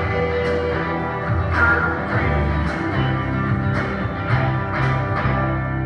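Church praise band playing: guitar over bass and drums, with repeated cymbal hits and bass notes that change about two and three seconds in.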